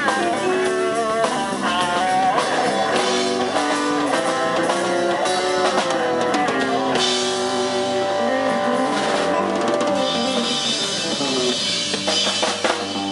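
Live rock band playing an instrumental passage: a lead electric guitar line with bent notes over electric bass and a drum kit with cymbals.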